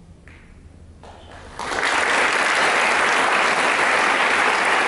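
Audience applause: after about a second and a half of quiet, clapping starts and builds within half a second to steady, full applause.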